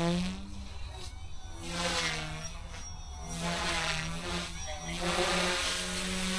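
Eachine E120S small electric RC helicopter flying overhead, its rotor and motor buzzing with a pitch that wavers up and down as it manoeuvres. The buzz swells and fades several times as it passes.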